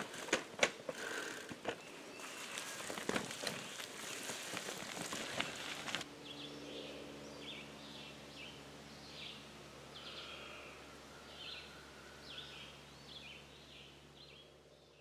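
Footsteps with clicks and rattles as a bicycle pulling a small two-wheeled trailer moves over leafy forest ground. About six seconds in this gives way to birds chirping over a faint low steady hum.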